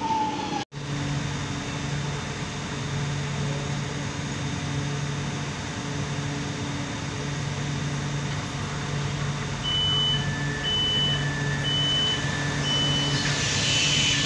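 Metro train car standing at a station with a steady hum. About ten seconds in, the door-closing warning starts, an alternating high-low beep about twice a second, and near the end the sliding doors shut with a brief hiss.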